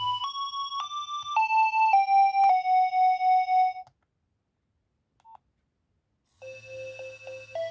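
Nokia 2300 mobile phone playing its ringtones: a simple electronic melody of stepped beeping notes that ends on a held note about four seconds in. After a couple of seconds of silence the next ringtone starts, a quicker run of notes over a low hum.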